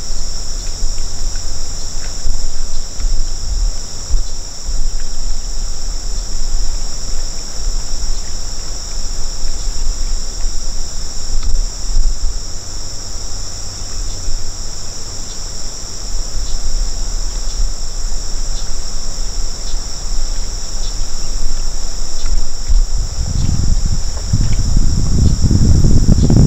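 Steady high-pitched insect chorus of crickets trilling without pause, over a low wind rumble on the microphone. Near the end a louder low rumble comes in.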